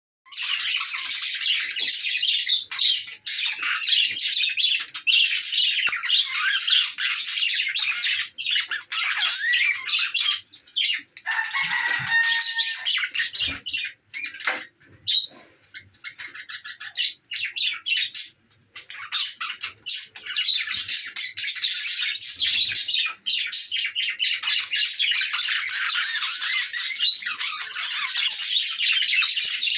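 Budgerigars chattering and warbling in a rapid, high-pitched stream, which thins out for a few seconds midway. The uploader calls it their mating sound.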